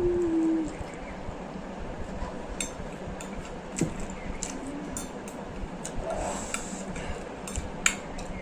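Close-up eating sounds from a bowl of spicy instant noodles: wet chewing and slurping, with scattered light clicks of a utensil against the bowl.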